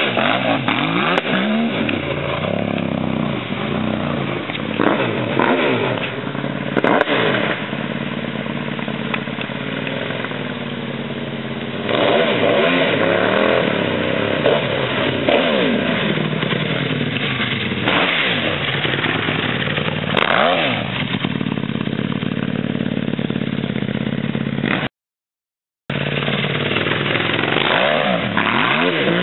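Supermoto motorcycle with an aftermarket exhaust accelerating hard on several runs, its engine revving up and dropping back again and again as it pulls away and comes back. The sound cuts out for about a second near the end.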